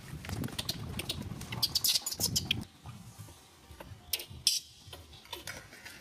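Baby macaque giving rapid, short, high-pitched squeaking cries, a dense flurry over the first two and a half seconds, then a few more about four seconds in.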